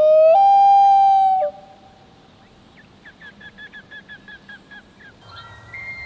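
Common loon wailing: a long call that slides upward, jumps to a higher held note and stops about a second and a half in. A faint run of short repeated notes follows. Near the end a bull elk's bugle begins as a high whistling tone.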